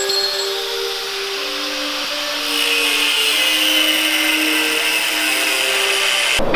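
Handheld angle grinder cutting through steel tubing. The motor's whine drops in pitch as the wheel bites into the tube about a second in, and the cutting hiss grows stronger midway. The sound stops abruptly near the end.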